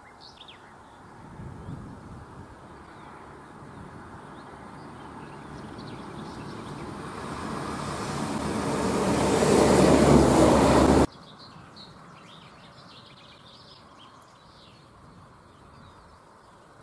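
A vehicle's rolling noise growing steadily louder for about ten seconds to a loud peak, then cut off abruptly. Birds chirping before it builds and after it stops.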